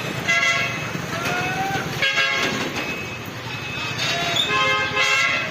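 Vehicle horns honking in traffic: several multi-tone blasts, one short tone gliding upward, over a steady road rumble.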